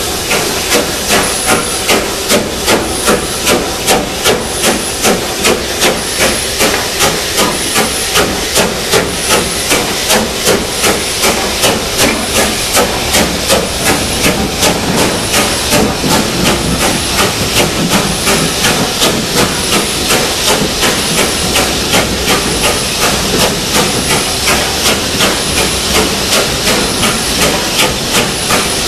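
Steam locomotive working a train, its exhaust beating in a steady rhythm of about two beats a second over a constant hiss of steam, heard from the train it is hauling. A faint high chirp repeats about once a second.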